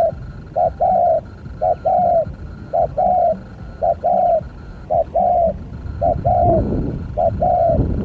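Spotted dove (tekukur) cooing in a steady repeated phrase, a short coo followed by a longer rolling one, about once a second. A low rumbling noise rises near the end.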